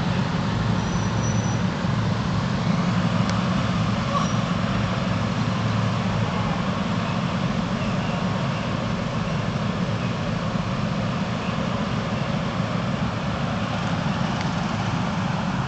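Small engines of riding lawn mowers running steadily.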